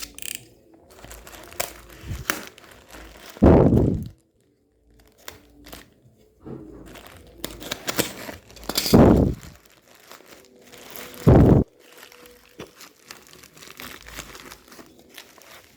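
Plastic packaging crinkling and rustling as a crimping tool is unwrapped and handled, with small clicks and taps, and three short, louder rushing bursts.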